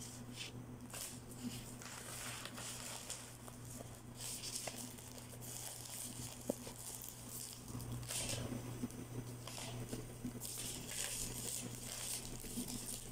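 Florist's wrapping paper and clear cellophane rustling and crinkling in short irregular rustles as a bouquet is wrapped and handled.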